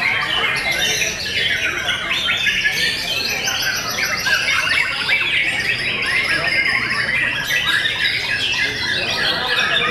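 White-rumped shamas singing in their cages, several at once: a dense, unbroken tangle of rapid whistled and chattering phrases that overlap one another.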